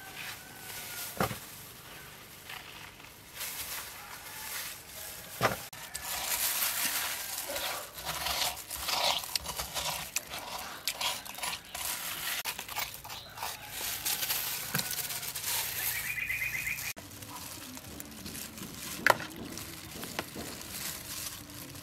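Metal spoon scooping and scraping the wet flesh out of a watermelon rind, an irregular run of scraping and squelching, busiest in the middle. A few sharp clicks, the loudest near the end.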